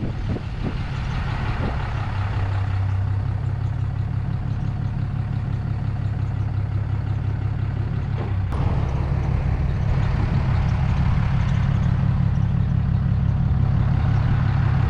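Steady low engine and road drone inside a moving vehicle's cabin, with an abrupt change in its tone about eight seconds in.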